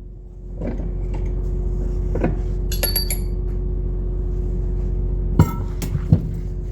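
Metal tools knocking and clinking on a John Deere 6081 thermostat housing as its stuck fan bearing shaft is worked at, about six scattered strikes, one ringing brightly about three seconds in. A steady machine hum comes up about half a second in and runs under them.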